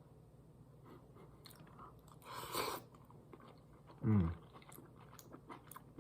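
A person chewing a mouthful of shrimp alfredo pasta, with soft wet mouth clicks, a short breathy rush about two and a half seconds in, and a brief low hum falling in pitch about four seconds in.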